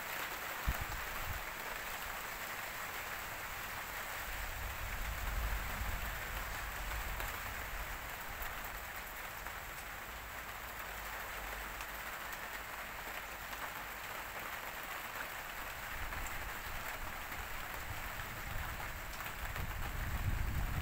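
Steady rain falling, an even hiss, with low rumbles of gusting wind on the microphone about four seconds in and again near the end.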